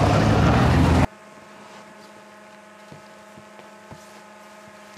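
Snowmobile engines running loudly as the machines drive past, cutting off abruptly about a second in. A much quieter steady hum follows, with a few faint knocks.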